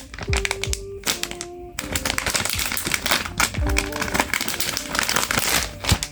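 Background music with a beat and a simple melody, over dense crinkling, tapping and clicking of packaging being handled; the crinkling is thickest through the middle.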